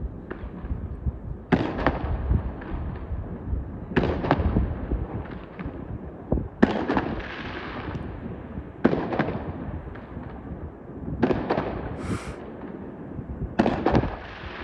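New Year fireworks display: aerial shells bursting in a steady run, a sharp bang about every two seconds, each followed by a crackling tail.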